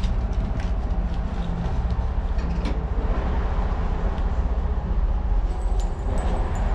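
Steady low rumble of a running vehicle, with scattered rattles and knocks over it.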